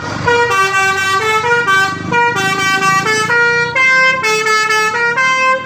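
Telolet horn on an Indonesian tour bus: a multi-note musical air horn plays a quick tune of stepped tones without a break, over the bus's engine rumble.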